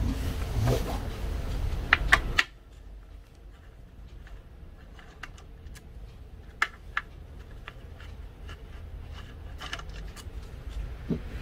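Clicks and light knocks of a hand tool working on the metal cylinder head of a Honda four-stroke brush cutter engine, undoing the head cover. The first couple of seconds hold louder handling knocks that cut off sharply, then scattered small clicks.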